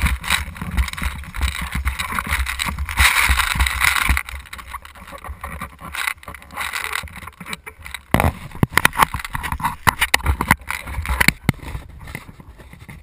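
Rustling and knocking handling noise on a gun-mounted action camera as the player moves, with a dense run of sharp clicks about eight to eleven seconds in.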